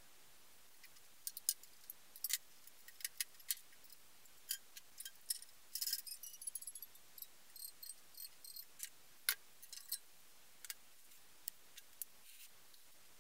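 Scattered light clicks and ticks from hands handling a scroll saw blade and its clamp on the saw's aluminium table, with a quick run of small clicks about six seconds in. The saw is not running.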